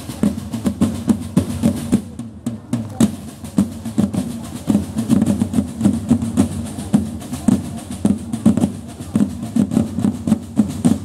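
Drums of a historical drum corps playing a fast, continuous marching rhythm with rolls.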